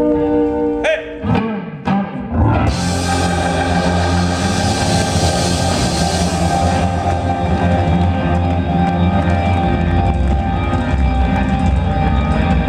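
Live rock band with electric guitar and drum kit: a held electric guitar chord rings out, a few quick sliding guitar notes follow, then about two and a half seconds in the full band comes in loud with crashing cymbals and drums, carrying on steadily.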